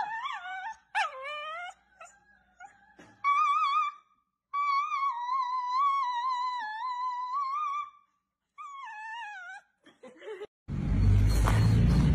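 A girl's high voice singing long, wavering notes in several phrases with short gaps between them. About eleven seconds in it cuts off to a steady low rumble.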